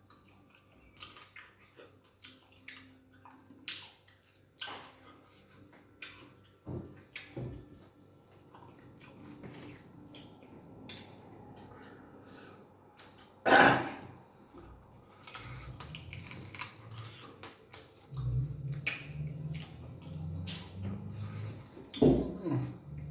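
Close-up eating sounds of fufu with egusi soup: wet chewing, lip smacks and scattered mouth clicks, with a louder knock about halfway through and another near the end.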